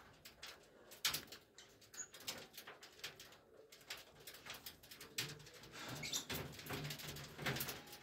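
A group of cockatiels pecking and cracking seeds in a clay dish: many quick, sharp, irregular clicks of beaks on seed. There is a brief high chirp about six seconds in, and an intermittent low hum in the second half.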